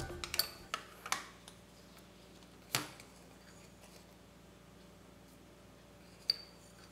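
Quiet kitchen handling sounds: a few light clicks and a knock as the lid comes off a glass jar of freeze-dried instant coffee, then a single sharp clink near the end as the coffee granules go into a glass measuring jug.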